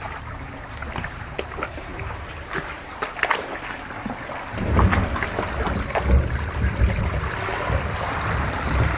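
Floodwater sloshing and trickling, with small splashes and knocks, becoming louder and heavier with a deep rumble about four and a half seconds in.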